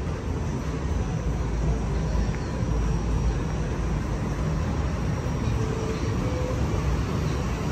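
Steady low rumble of street traffic, with cars driving along the avenue.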